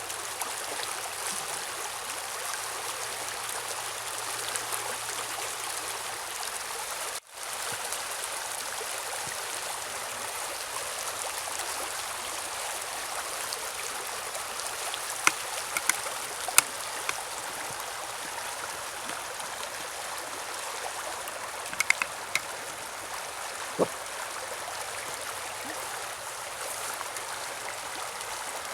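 Mountain river running steadily over a shallow, rocky bed. The sound cuts out for an instant about seven seconds in. A few sharp clicks or knocks come later, in two small clusters.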